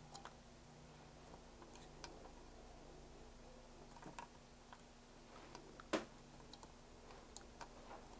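Light clicks of multimeter probe tips touching solder joints on a circuit board, scattered and faint, with one sharper tap about six seconds in, over near-silent room tone with a faint low hum.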